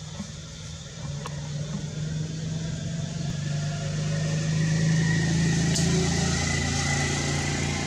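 A motor vehicle's engine running with a steady low hum, growing louder over about four seconds and easing slightly near the end.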